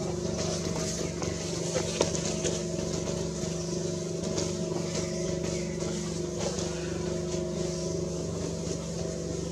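A steady motor hum of several held low tones that never changes, with a high hiss over it and a single sharp click about two seconds in.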